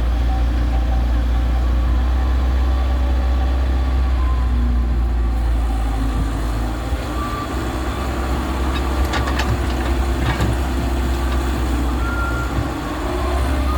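Heavy diesel engine running steadily with a deep drone, and a few sharp knocks about nine to ten seconds in.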